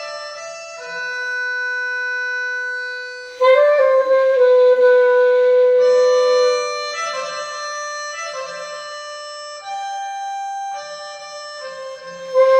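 Slow reed-instrument music with long held notes: a recorded pianica (melodica) piece with live alto saxophone played over it. It grows louder about three and a half seconds in and again near the end.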